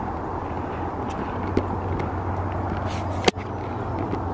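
Steady low rumble of wind and handling noise on a handheld camera's microphone while walking, with a few faint clicks and one sharp click about three seconds in.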